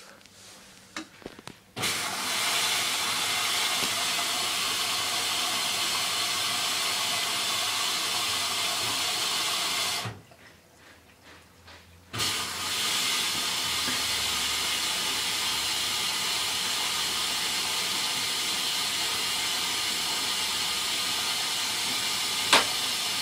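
Hoover DYN9144D3X washing machine filling with water at the start of its cycle: a steady rushing hiss through the inlet valve, which stops for about two seconds in the middle and then starts again. A single sharp click comes near the end.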